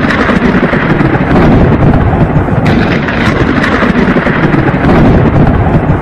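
Thunder sound effect: a loud, continuous rumbling storm noise that cuts off suddenly at the end.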